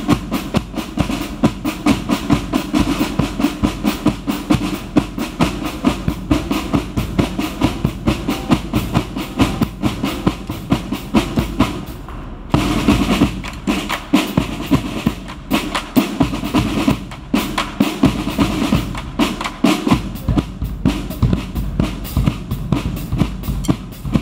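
A line of military snare drums playing together in a rapid rhythmic drum cadence. About halfway through they break off for a moment, then come back in.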